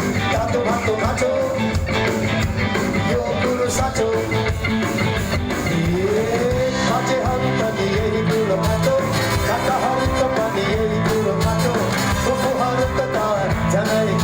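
A live band playing a Nepali folk song in a rock arrangement, with a steady drum beat and a sung melody.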